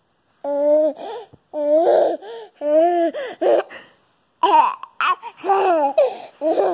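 A baby laughing in a string of short, high-pitched squeals with brief pauses between them, several ending in a falling pitch.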